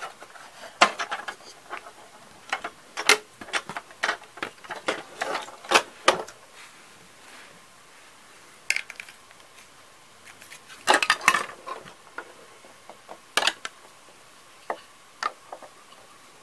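Hard plastic Playmobil building panels and parts clicking and clacking against each other as they are handled and snapped into place, in scattered runs of sharp clicks with a quieter pause in the middle.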